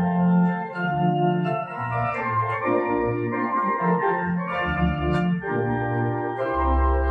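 Organ music: sustained chords over a bass line that moves to a new note every second or so.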